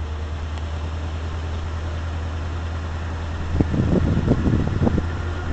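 Car engine and road noise from inside a moving car, a steady low drone. From about three and a half seconds in, irregular gusts of wind buffet the microphone.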